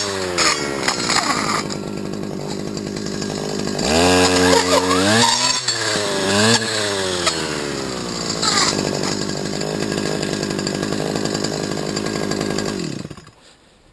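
Stihl FS250 two-stroke brush cutter engine revved up and down several times, then running steadily at speed. Near the end its pitch falls as it winds down and stops.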